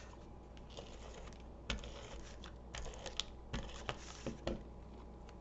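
Paper and card stock being handled and set down on a tabletop: a scattering of light, irregular taps and clicks with soft paper rustles, starting about a second and a half in.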